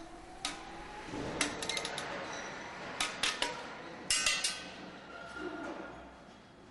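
Ratchet wrench and steel socket on a busbar joint's double-head shear stud: a few sharp metallic clicks and clinks in small clusters, some ringing briefly, as the stud is tightened until its outer head shears off.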